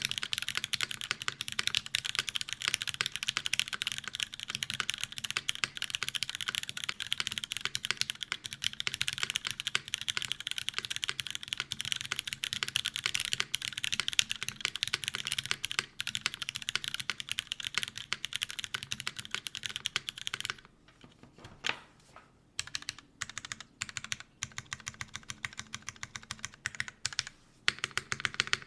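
Fast, continuous typing on a custom Zekk.Works RBB mechanical keyboard with lubed Cherry MX Black linear switches, GMK keycaps and a top-mounted full aluminium plate, set straight on the desk with no deskmat. About two-thirds of the way through, the typing thins to a few scattered keystrokes for several seconds, then picks up fast again near the end.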